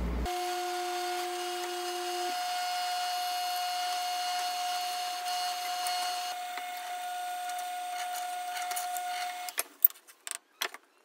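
Drill press running steadily with a whine as its bit bores the insert-tube hole through a popcorn-kernel and epoxy pen blank. The motor stops about nine and a half seconds in, followed by a few light clicks and taps.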